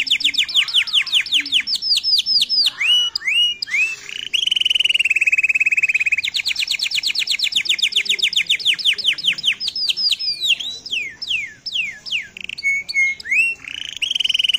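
Canary singing a long, loud song: fast trills of repeated high descending notes, a buzzy rolled phrase about four seconds in, another fast trill, then slower separate swooping notes before a last rolled phrase near the end.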